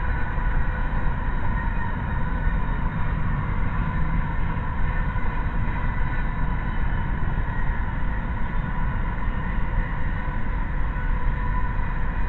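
Double-stack intermodal container train rolling past: a steady rumble of the wagons on the rails, with a faint steady high tone running through it.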